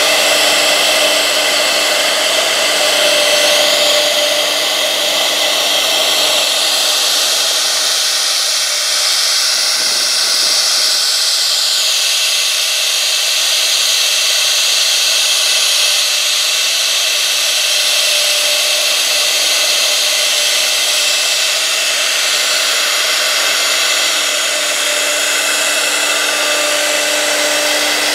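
A 6 kW air-cooled CNC router spindle running at a steady pitch while its V-bit engraves a groove into a wood panel, with a hissing cutting noise. The hiss grows brighter for a couple of seconds about a third of the way in.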